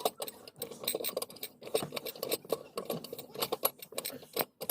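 Irregular metallic clicking and scraping as the fitting holding a car's under-slung spare tyre is worked loose by hand.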